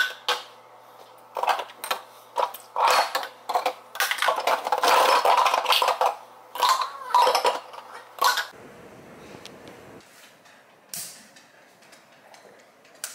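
Dishes and cutlery clinking and clattering as they are hand-washed in a kitchen sink: a busy run of knocks and clatters for about the first eight seconds, then quieter.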